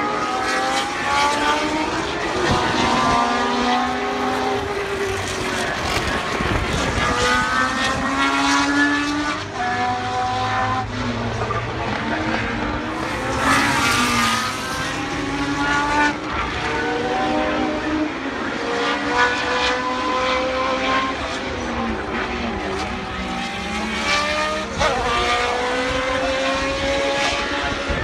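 Historic Formula One cars with Cosworth 3.0-litre V8 engines at racing speed. They accelerate again and again with rising pitch broken by quick upshifts, and one car passes close by about halfway through.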